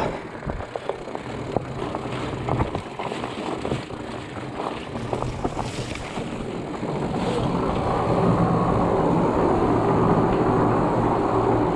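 Fat bike rolling fast down a dirt forest trail: knobby fat tyres rumbling with rattles and knocks of the bike over bumps, then from about seven seconds a louder, steadier tyre rumble as it rides through a tunnel.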